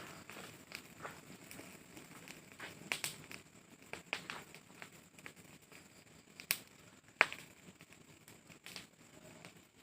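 Rubbish fire burning: irregular crackles and sharp pops over a faint hiss, with two louder snaps a little past the middle.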